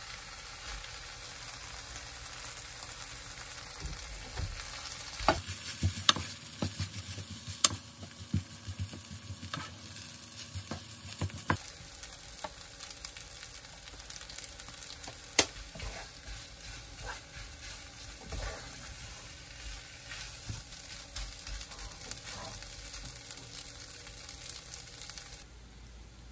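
Kimchi fried rice sizzling in a nonstick pot while a wooden spatula stirs it, with frequent sharp taps and scrapes of the spatula against the pot, busiest between about five and twelve seconds in. The sizzle cuts away to a quiet hiss just before the end.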